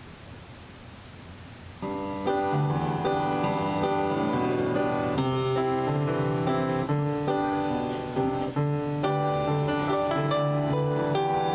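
Faint room noise, then about two seconds in a piano starts playing, a steady run of chords that carries on.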